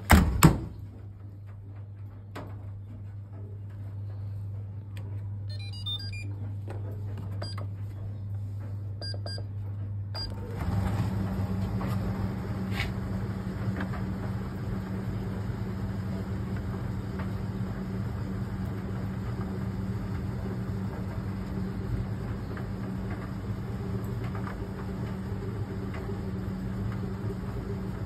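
Fisher & Paykel ED55NZ clothes dryer: its door shuts with a loud knock, a few short beeps follow as the control buttons are pressed, and about ten seconds in the motor starts and the drum runs steadily with a low hum, tumbling the load.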